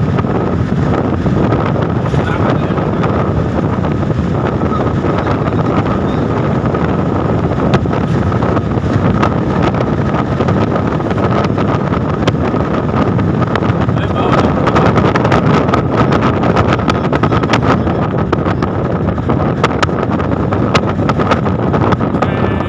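Wind and road noise from a vehicle cruising at highway speed, buffeting heavily on the phone's microphone, with a faint steady whine underneath and crackles from the wind hitting the microphone.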